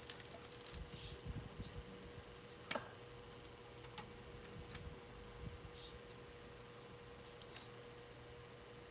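Faint scattered clicks and handling noises, with one sharper click about three seconds in, over a steady low hum.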